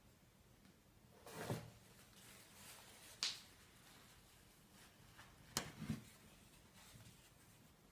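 Faint handling of a Nespresso Aeroccino milk frother: a brief rustle about a second in, a sharp click, then another click and a soft knock as its lid is pressed on.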